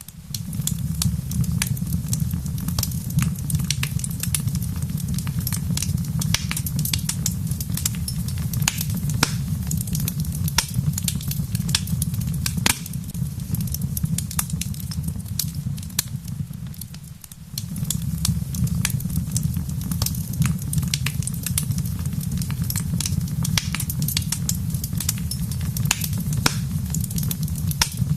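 Wood fire crackling: many sharp pops and snaps over a steady low rumble, which dips briefly for a moment about two-thirds of the way through.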